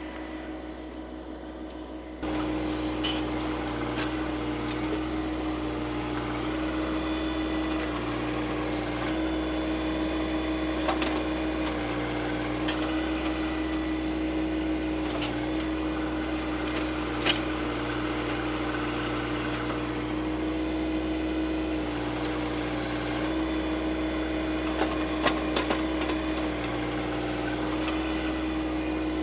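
John Deere 2025R compact tractor's three-cylinder diesel engine running steadily while working the backhoe, louder from about two seconds in. Its pitch dips briefly now and then, with a few sharp clicks and knocks.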